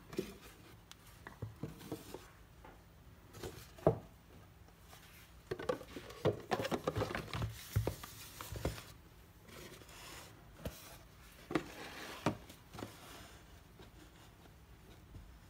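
Hands handling a lacquered wooden Rolex 50.00.09 watch box and its cardboard outer box: a few sharp knocks and taps, with a stretch of cardboard scraping and rubbing in the middle as the box goes into the outer box and the lid is fitted.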